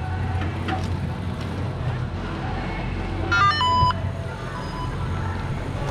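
Steady low rumble and rattle of a mountain bike ride on a rough trail, with a brief high squeal that steps in pitch about halfway through.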